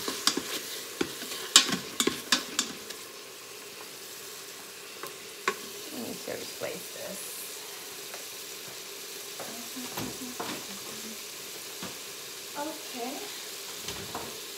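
Ground beef sizzling as it browns in the stainless steel inner pot of an electric pressure cooker, with a meat chopper scraping and clicking against the pot during the first few seconds. After that, a steady sizzle with a few scattered ticks.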